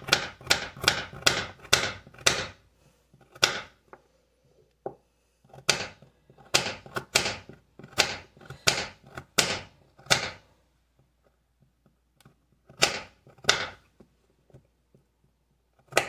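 Kitchen knife chopping baby carrots directly on a bare countertop, with no cutting board: runs of quick, sharp knocks, a few a second, broken by short pauses.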